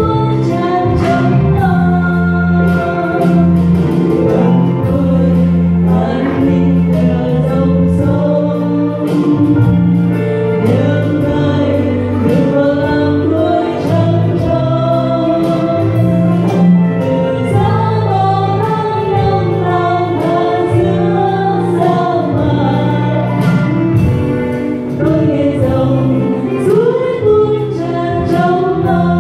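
Two women singing a Vietnamese hymn as a duet into microphones over instrumental accompaniment, with sustained low notes and a light steady beat, amplified through a church's sound system.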